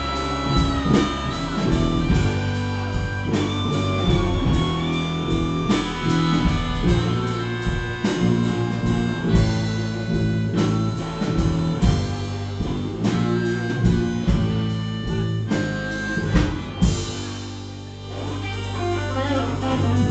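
Music: a guitar-led song over a steady drum beat.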